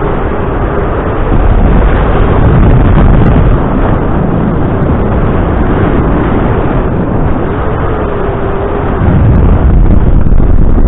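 Loud wind rushing over the microphone of a paraglider pilot's camera in flight, a steady rough buffeting that swells louder twice, about a second in and again near the end.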